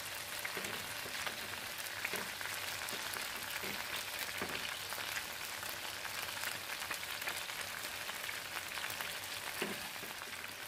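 Chicken pieces, marinated in yogurt, shallow-frying in ghee and oil in a pan, with a steady sizzle and crackle of hot fat.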